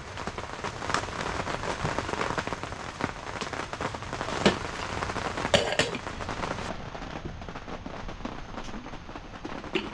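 Heavy rain pattering steadily on a surface, with a few sharp clicks standing out around the middle.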